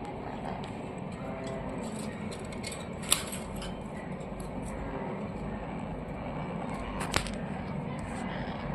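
Two sharp clicks, one about three seconds in and one about seven seconds in, over steady background noise.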